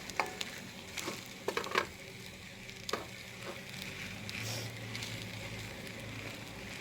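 Arroz valenciana of glutinous rice cooking in a pan with a low, steady sizzle, and a few sharp clicks in the first three seconds.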